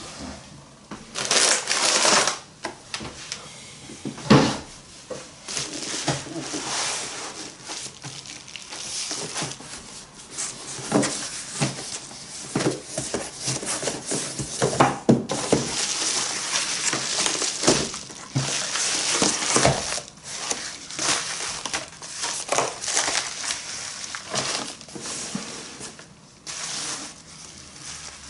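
Packaging being handled and opened by hand: irregular crinkling and crackling of wrapping, tearing, and scattered knocks as the box and contents are moved.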